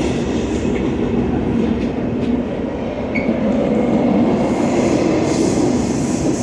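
Freight train passing close by: a loud, steady rumble of wheels and cars on the rails.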